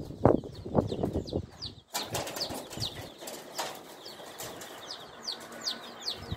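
A pigeon's wings flap in a few quick, irregular beats. About two seconds in the sound switches abruptly to a busy run of short, high, falling chirps from a crowd of small birds, repeating several times a second.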